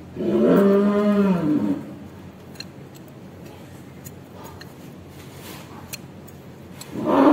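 Cattle mooing twice while roped down for hoof trimming: a loud call of about a second and a half near the start, and another beginning near the end, dropping in pitch.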